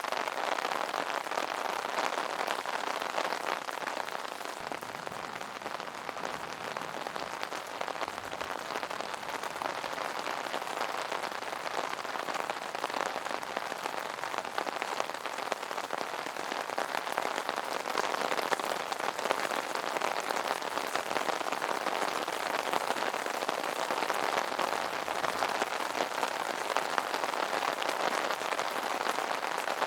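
Steady rain falling on an umbrella: a dense, even spatter of countless small drop hits that goes on without let-up.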